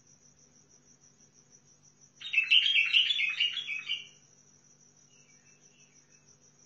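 A bulbul singing one rapid two-second phrase of short, quick notes about two seconds in. A faint steady high-pitched tone sits beneath it.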